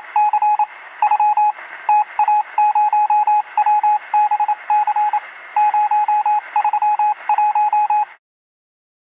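Intro sound effect of a single high electronic beep keyed on and off in short and long pulses in uneven groups, like Morse code, over a radio-like hiss. It stops abruptly about eight seconds in.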